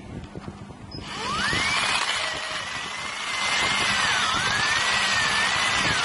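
Electric drill starting up about a second in and boring into the steel rotor of a refrigerator compressor motor: a motor whine that rises quickly, then wavers and dips in pitch twice over a loud hiss of cutting.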